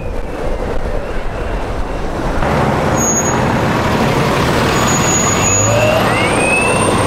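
Road traffic close by, with a concrete mixer truck and cars running in the next lanes, heard from a moving electric skateboard. Wind rumble on the microphone for the first couple of seconds, then steadier traffic noise with a short rising whine near the end.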